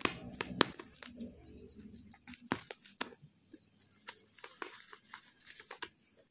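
Plastic mailer bag and packing tape crinkling and crackling as a small metal pry tool picks at the tape. Scattered short clicks and rustles, loudest in the first second and sparser after.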